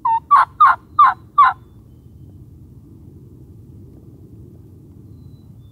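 Turkey calling: five loud notes in quick, even succession, about three a second, each falling in pitch, all within the first second and a half.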